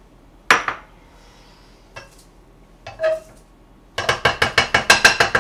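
Wooden spatula knocking and scraping against a metal nonstick wok, the pan ringing slightly: a few separate knocks, then a fast run of clinks, about seven a second, near the end.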